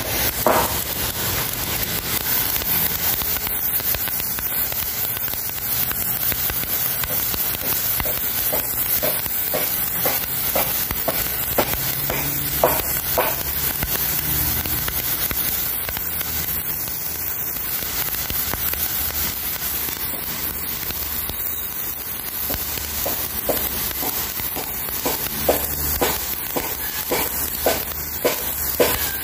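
Narrow water jet from a garden-hose nozzle hissing and spattering on wet, algae-covered concrete as it scours the slime off. A steady hiss runs throughout, with scattered sharp crackling ticks that come more often near the end.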